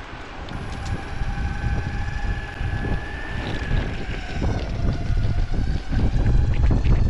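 Electric skateboard riding: wind buffeting the microphone over the rumble of wheels rolling on asphalt, with a faint motor whine that rises slightly in pitch and fades out about four and a half seconds in. The rumble grows louder near the end, with small clicks from the wheels over the pavement.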